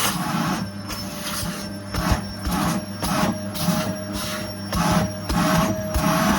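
Household vacuum cleaner running with a steady motor whine and hum, its suction noise surging and falling about twice a second as it is worked over the floor in strokes.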